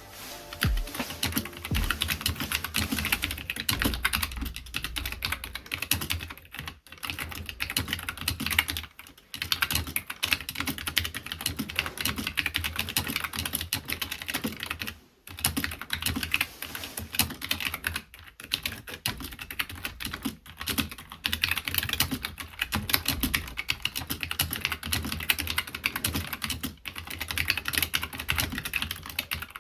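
Steady typing on a tray-mounted custom mechanical keyboard with Hi Tek 725 (SI grey) tactile switches, recorded on an iPhone: a dense run of keystroke clacks broken by short pauses every few seconds.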